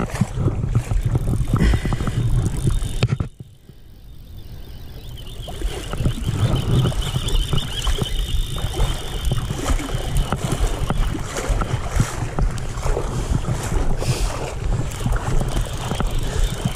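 Wind buffeting the microphone with a heavy low rumble that drops away suddenly about three seconds in and builds back over the next few seconds. A thin steady high whine runs for several seconds in the middle.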